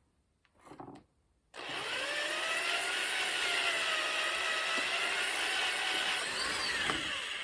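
A small electric motor starts abruptly about a second and a half in and runs steadily for about six seconds with a whine, its pitch sagging slightly midway and recovering, then stops near the end.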